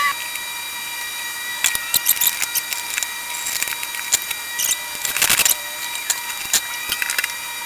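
Scattered metallic clicks and clinks of hand tools and loose parts during disassembly of a diesel generator's frame, with a denser rattle about five seconds in.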